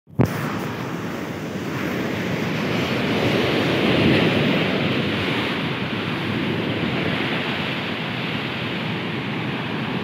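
Stormy sea surf: waves breaking and washing in a steady rush that swells a little about four seconds in, with wind on the microphone. A short bump right at the start.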